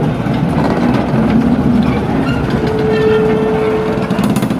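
Railway locomotive running with a steady low rumble. A single steady note sounds over it for about a second and a half in the second half.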